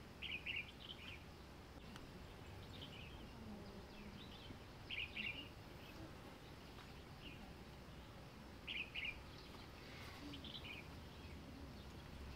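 Faint outdoor ambience with a bird singing: a short cluster of high chirps repeated about every four seconds, with a few softer chirps in between.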